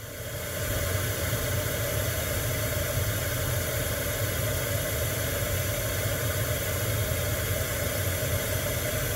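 Pink noise test signal played through a car audio system, a steady even hiss fading up over the first second and then holding level, used as the measurement signal for a real-time analyser reading of the system's frequency response.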